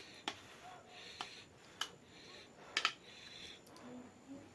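Close-miked eating sounds: quiet chewing with four sharp, wet clicks spread over the first three seconds.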